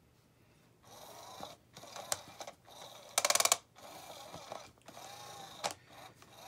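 SmartyKat Hot Pursuit motorised cat toy running, its motor whirring as it turns the wand under the nylon cover, starting about a second in. About three seconds in comes a brief loud burst of rapid clicking from its mechanism.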